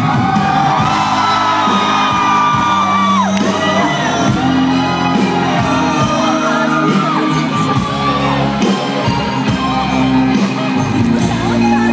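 Live rock band playing loudly in a concert hall, with held sung notes and the crowd shouting and whooping along.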